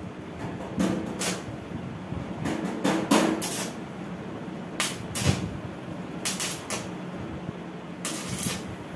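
Stick (arc) welding electrode striking a series of short tack welds on sheet steel: about seven brief crackling bursts, irregularly spaced, over a steady low hum.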